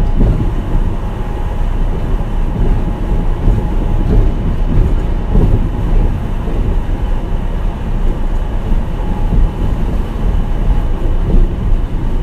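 Kobe Port Liner 2000-series rubber-tyred automated guideway train running steadily: a continuous low rumble of the tyres on the guideway, with a faint steady whine.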